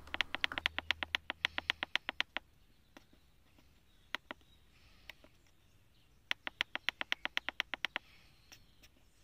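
Keypad of a Foxwell T2000 TPMS tool pressed over and over to scroll a menu: runs of quick, short, high-pitched key beeps, about six a second for a couple of seconds, a few single ones, then another quick run near the end.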